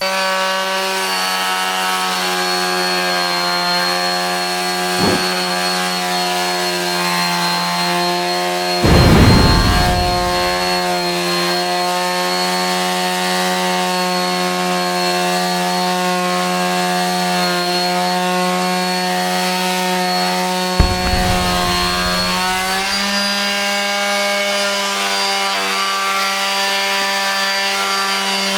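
An electric mouse detail sander with an oscillating pad runs steadily, giving a buzzing hum with a thin high whine over it. About nine seconds in there is a louder rasping surge, and later the pitch steps up slightly.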